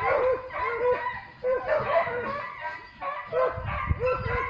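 Beagles yelping in quick short calls, about three a second, each dropping in pitch, in runs broken by short pauses about a second and a half in and again around three seconds.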